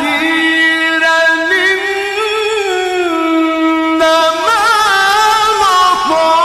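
A man's voice in melodic Quran recitation, holding one long note for about four seconds on a single breath, then breaking into quick ornamented turns near the end.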